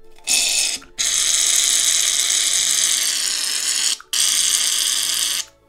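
Aerosol can of shaving foam spraying in three bursts, a short one, a long one of about three seconds, then a medium one, each starting and stopping sharply.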